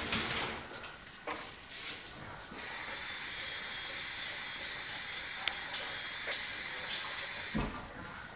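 Water running steadily from a kitchen tap for several seconds, with a few small clicks and a knock near the end.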